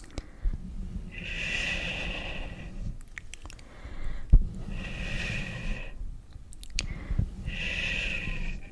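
An ASMR trigger sound made close to the microphone: three slow, even hissing strokes about three seconds apart, with small clicks and taps between them.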